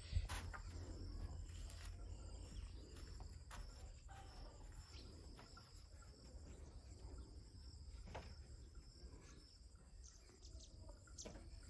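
Faint, steady chirring of insects such as crickets, with a low rumble underneath.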